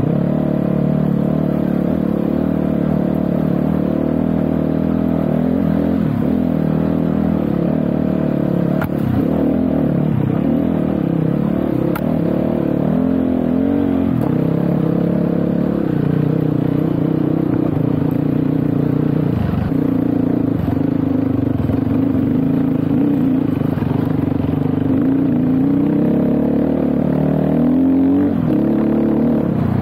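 GPX Moto FSE300R dirt bike's engine running continuously while ridden, its pitch rising and falling with the throttle, with a few faint knocks.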